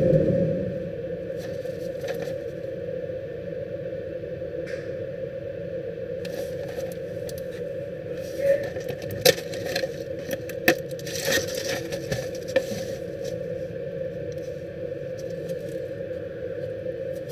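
Gloved hands handling a cardboard tablet box and its plastic-and-foil blister strip: a thump at the very start, then a cluster of sharp crackles, clicks and scrapes about halfway through as the box is opened and the strip comes out. A steady low hum runs underneath.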